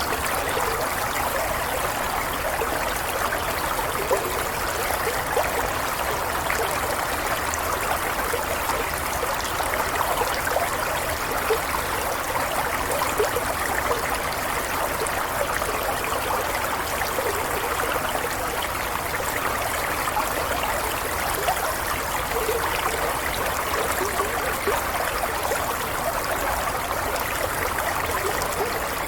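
A stream of water flowing steadily: an even rush with many small trickles and gurgles.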